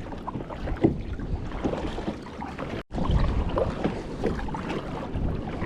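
Water splashing and sloshing around a moving kayak, with wind buffeting the microphone, broken by a brief cut about three seconds in.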